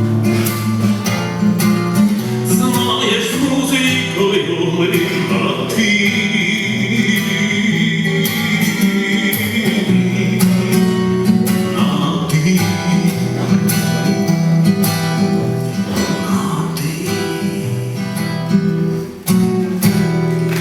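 Live band music led by guitars, playing the instrumental close of a song.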